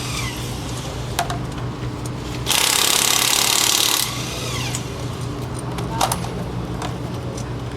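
Engine idling steadily, with a loud burst of hissing noise that starts and stops abruptly and lasts about a second and a half in the middle, and a couple of sharp clicks.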